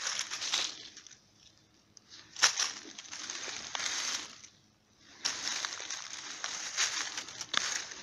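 Dry fallen leaves crackling and rustling as the leaf litter is handled, in three bursts with quiet gaps between, the last and longest running from about five seconds in to the end.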